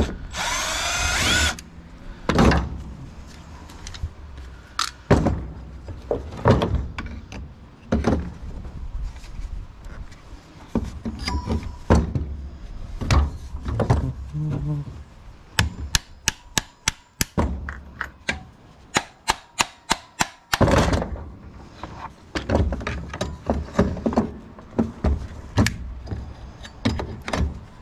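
A power drill-driver whirs briefly, rising in pitch, as it backs out a Phillips screw on a table saw motor. It is followed by a long stretch of knocks, clinks and thunks of metal parts and tools being handled as the motor is dismantled, with a quick run of sharp clicks about halfway through.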